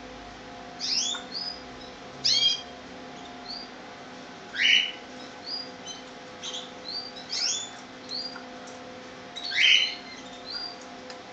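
Young Gloster canaries calling: short sharp chirps and slurred notes, some sliding down in pitch, in loose clusters every second or two, three of them louder than the rest. A faint steady hum runs underneath.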